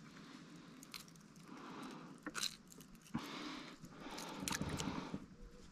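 Handling noises from a freshly landed yellow peacock bass being held and unhooked in a kayak: a series of sharp clicks and scrapes with short stretches of rustling.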